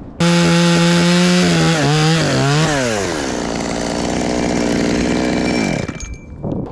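Chainsaw running at full throttle, its pitch wavering and dipping as the chain bites into wood, then settling lower and winding down to a stop near the end.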